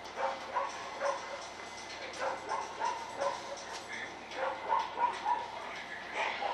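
A dog whining and yipping in short high-pitched notes, two or three a second, on and off.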